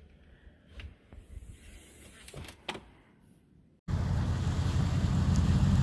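A few faint knocks and clicks, then a sudden cut, nearly four seconds in, to a loud, steady, low rumbling noise.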